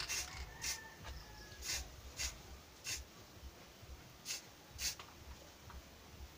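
Cut plastic bottle, shaped into a fringed flower pot, crinkling and rubbing against the hands as it is turned over: a handful of short rustles, roughly one every second or less.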